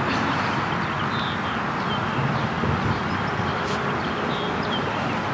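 Steady outdoor background noise, a continuous even hiss, with a few faint, short high chirps now and then.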